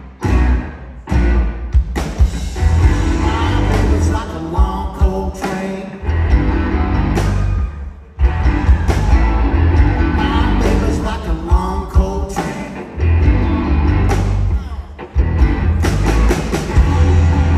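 Rock band playing live: electric guitar, bass guitar, drum kit and piano, loud and bass-heavy, with the whole band stopping short for a moment a few times before coming back in together.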